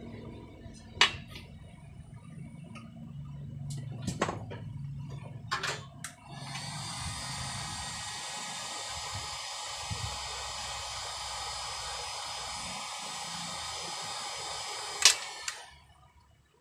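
Handheld electric heat gun blowing steadily for about nine seconds, shrinking heat-shrink tubing over a wire joint. Before it starts there are a few light clicks of handling, and the blowing ends just after a sharp click.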